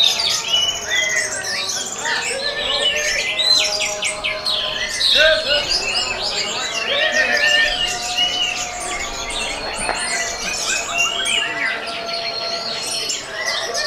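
Many orange-headed thrushes singing at once, a dense chorus of overlapping whistles, trills and chirps with no break.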